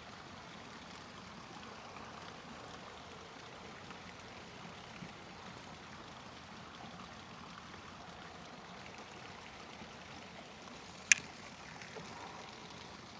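Steady faint rushing background noise, with one sharp click about eleven seconds in.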